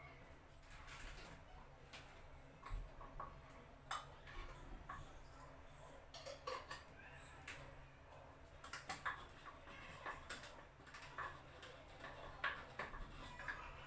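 Irregular light clicks and taps of kitchen utensils, a few sharper knocks among them, over a faint low hum.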